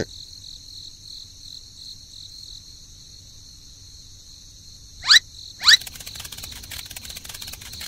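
Two short, loud squeaks that rise sharply in pitch, about half a second apart, over a steady high-pitched background hiss.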